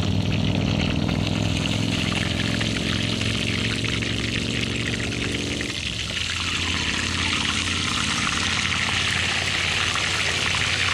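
Oil sizzling in a frying pan as a large whole crappie fries, an even hiss that grows louder about halfway through. A low steady hum underneath dies away about six seconds in.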